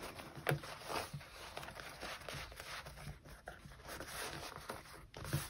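Faint rustling and light handling noise of hands folding and smoothing a sewn cork-fabric tablet sleeve, with a couple of small clicks.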